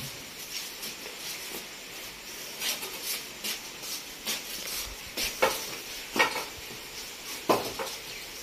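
Steady hiss of rain, with a series of irregular wooden knocks and clatters as a woven charpai's frame is handled and stood upright against a wall.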